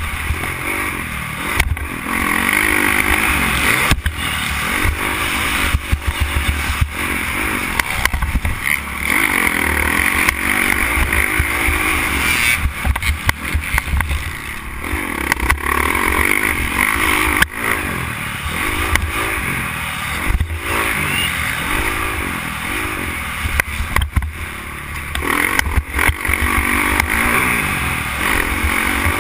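Motocross dirt bike engine being ridden hard, revving up and falling off again and again as the rider works the throttle and gears, heard close from the bike.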